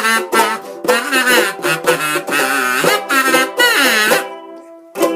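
Kazoo playing a buzzy closing melody over a strummed ukulele. The kazoo stops a little after four seconds in, leaving a ukulele chord ringing, with one last short strum near the end.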